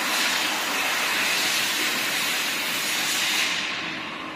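A loud, steady hiss that fades away in the last second.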